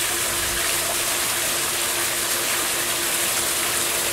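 Water from a natural rock grotto waterfall pouring steadily into a swimming pool, an even, continuous splashing.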